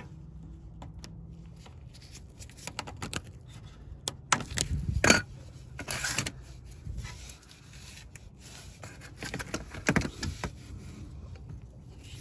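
Pliers clicking and scraping on the spring hose clamps of the transmission cooler lines as they are worked loose, with irregular metal clicks and rubbing that come in clusters about four to six seconds in and again around ten seconds.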